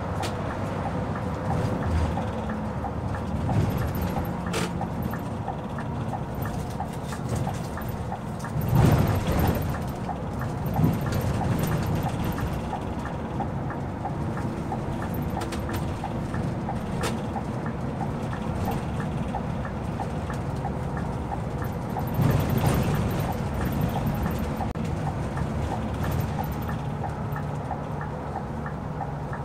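Scania K360IB coach heard from the driver's cab while driving: steady engine and tyre noise with a light regular ticking. Two louder knocks, about nine seconds in and again about twenty-two seconds in, as the coach goes over bumps.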